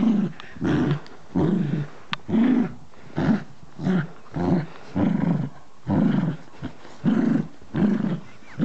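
Dachshund growling in play while tugging at a plush toy: a run of short growls, one after another, about one or two a second.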